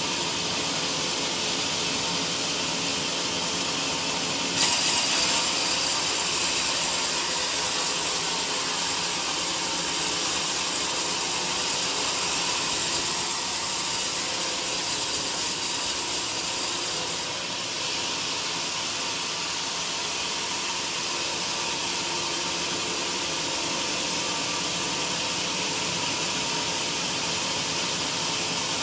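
Vertical band sawmill blade running and ripping lengthwise through a large squared beam of joar hardwood, a steady hissing cutting noise. It grows louder about five seconds in and drops back to its earlier level around seventeen seconds.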